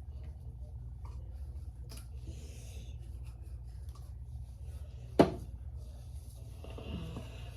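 Fingers rubbing and scratching baby oil into the scalp and hair, a soft scratchy rubbing over a steady low hum, with one sharp click about five seconds in.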